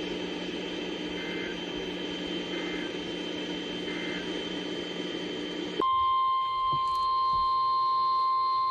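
NOAA Weather Radio alert sequence. Three short data chirps of the SAME alert header sound about a second and a half apart over radio hiss. Just before six seconds in, the steady 1050 Hz warning alarm tone starts and holds, signalling that a new warning is about to be read.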